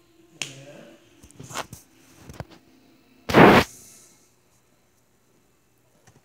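Handling noise on the recording device: a few short knocks and rubs, then one loud, brief brushing burst about three and a half seconds in as an arm moves across the device.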